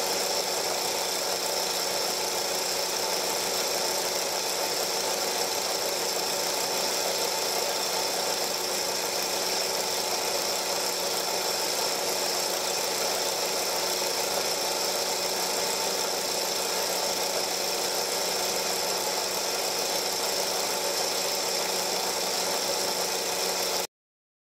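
Steady whirr and hiss of a film projector's motor and mechanism running, unchanged throughout, as a silent home movie is played back. It cuts off abruptly just before the end.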